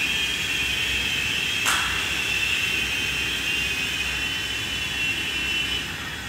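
Several small remote-control helicopters flying together, their rotors and motors making a steady high whine over a rush of air. A brief swish comes about a second and a half in, and the sound dies down near the end.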